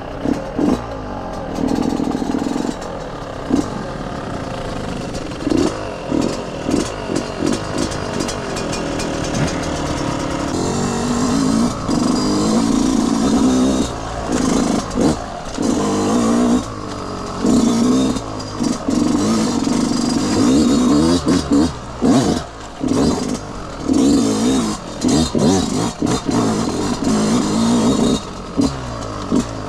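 Yamaha YZ125 125cc two-stroke single-cylinder engine being ridden off-road, revving up hard and dropping off again over and over as the throttle is opened and shut.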